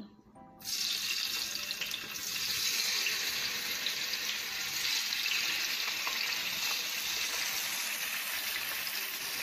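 Strips of firm tofu sizzling as they are slid into a hot square frying pan. The hiss starts suddenly about half a second in and holds steady.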